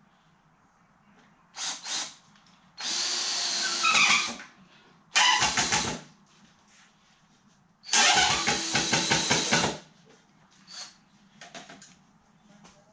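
Handheld power drill driving screws into wooden 2x4 table legs, in several short runs of its motor with two longer ones of about two seconds each.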